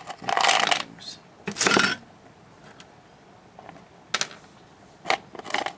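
Small metal screws clinking and clattering together in about five short bursts, the longest in the first second, as the handful of microwaved screws is moved about on a hard floor.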